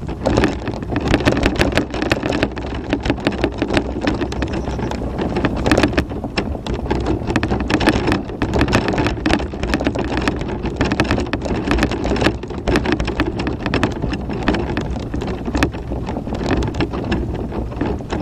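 Tramper off-road mobility scooter driving over a rutted chalk track: its tyres crunch and crackle over loose chalk and stones in a dense, continuous clatter over a steady rumble.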